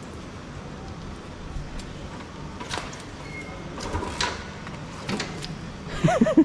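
Scattered knocks and clicks of a Royal Enfield motorcycle being mounted and handled, with a short cluster of squeaks near the end. The engine is not running.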